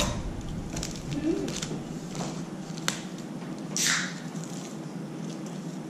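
Small plastic parts bags being handled and cut open with a scalpel: light crinkles and small clicks, with one louder plastic rustle a little under four seconds in.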